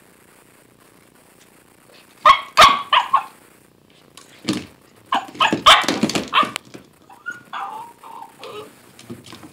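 Husky puppy barking and yipping in short bursts, starting about two seconds in, mixed with knocks from its hard plastic Kong Wobbler treat toy being pushed against the floor and a plastic drawer unit. A few drawn-out whiny sounds come near the end.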